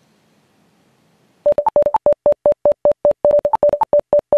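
Electronic beeping sound effect for an instant-replay title: a rapid string of short beeps, about five a second, mostly on one pitch with a few higher ones mixed in, starting about a second and a half in after near silence.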